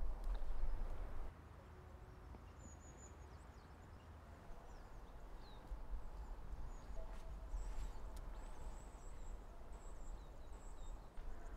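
Footsteps through forest undergrowth for about the first second, then quiet woodland ambience with faint, thin, high-pitched calls of small birds.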